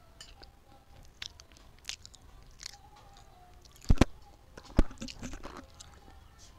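Close-miked mouth sounds of a person chewing and eating, picked up by a headset's in-line microphone held at the mouth: many small wet clicks, with two sharp, much louder clicks about four and five seconds in.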